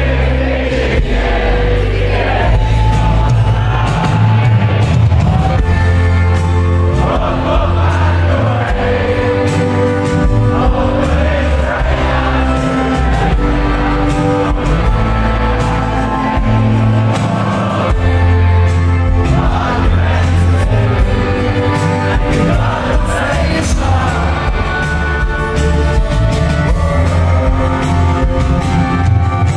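Live rock band performing in an arena, heard from the audience: an amplified acoustic guitar and lead vocal over heavy bass, with the band playing along.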